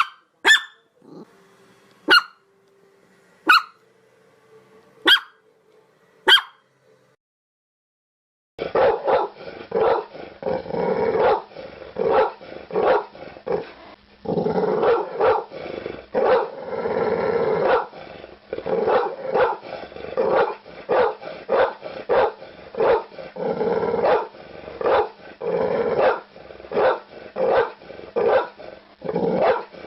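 Dog barking: first single sharp barks about every second and a half, then, after a brief silence, rapid continuous barking, several barks a second.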